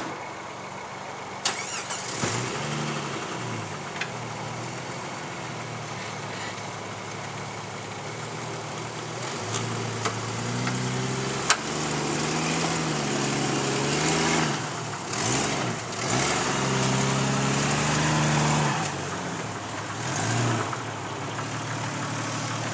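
4x4 engine revving up and down again and again as the vehicle works under load on a tow strap over rough off-road ground. The revs pick up about two seconds in and are highest in the second half. There are two sharp knocks, one early and one about halfway.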